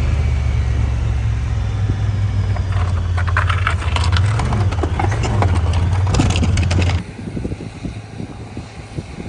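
A vehicle engine running steadily with a low hum, with rattling from about three seconds in. It cuts off suddenly about seven seconds in, leaving quieter wind noise.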